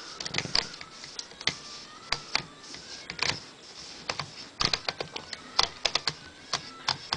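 Remington Noiseless Portable typewriter's platen being turned by hand while a cloth is rubbed over it, its ratchet giving irregular sharp clicks, a few a second and bunched a little past the middle.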